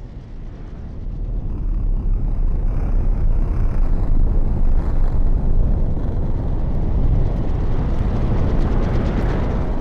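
Loud, low rumble from a live metal concert's PA, swelling in over the first two seconds and then holding steady.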